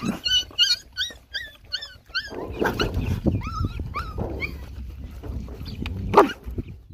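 Puppies whimpering in a quick run of short, high yelps while crowding a food pan, over the noise of a pack of dogs eating. One sharp yelp comes near the end.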